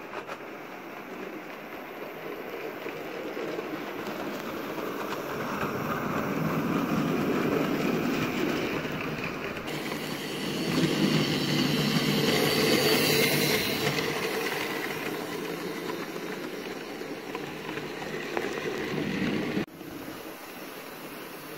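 Model railway locomotive running on the layout's track, a whirring rumble of motor and wheels on the rails. It grows louder, is loudest about halfway, eases off, and drops away suddenly near the end.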